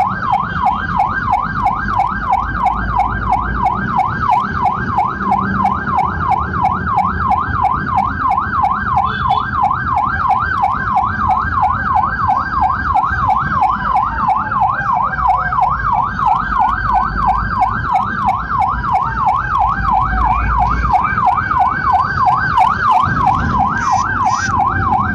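Electronic emergency-vehicle siren in a fast yelp, about three rises and falls a second, with a second, slower wailing siren crossing it now and then. A low engine and road rumble runs underneath.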